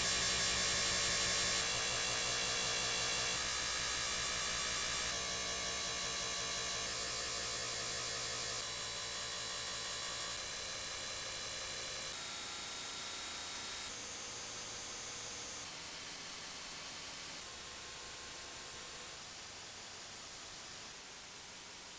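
A chain of steady electronic buzzing hums with hiss, each lasting under two seconds before cutting abruptly to the next, every one a step quieter than the one before.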